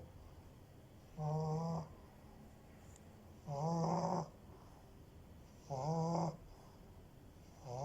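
French bulldog snoring in a steady rhythm: three pitched snores about two seconds apart, each lasting under a second, with a fourth starting near the end.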